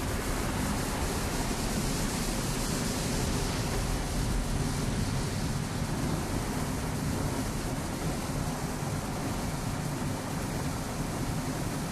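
Car wash: a steady rush of spraying water over a low rumble, the hiss brightest for the first few seconds.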